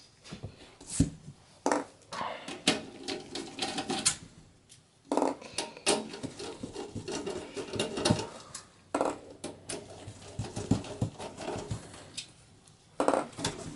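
Torx T15 screwdriver backing the four power-supply mounting screws out of the back of a steel PC case: irregular metallic clicks and scrapes with short pauses between them.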